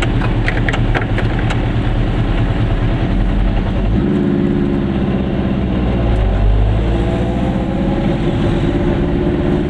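Goggomobil's two-stroke twin-cylinder engine running on the move, its note changing about four seconds in and rising again near the end. A few sharp clicks sound in the first second or so.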